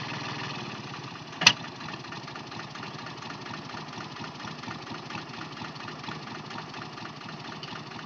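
Yanmar compact tractor's three-cylinder diesel engine idling steadily, with one sharp clank about a second and a half in.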